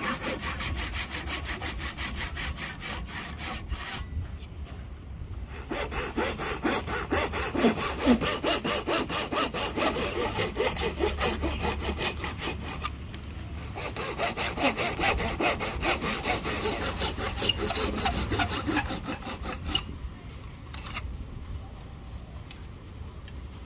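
Hand saw cutting slots down into the top of a Siamese rosewood axe handle, in quick, even back-and-forth strokes. It pauses briefly twice and stops a few seconds before the end.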